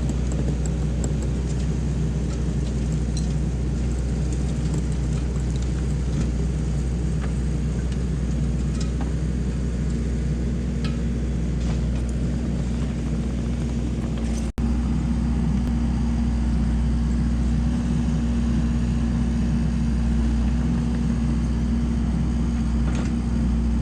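Kubota SVL90-2 skid steer's diesel engine running steadily under load while it drives a hydraulic power rake. The drone cuts out for an instant about fourteen and a half seconds in and comes back with a slightly stronger hum.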